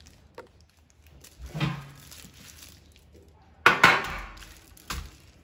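Black enamelled metal baking tray handled and set down on a benchtop: a few clanks, the loudest about two-thirds of the way in with a short ring, another just before the end.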